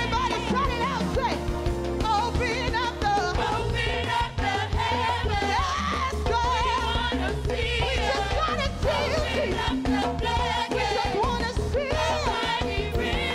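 Gospel worship singing: several women's voices on microphones, a lead voice sliding through ornamented runs, over instrumental accompaniment with a steady bass.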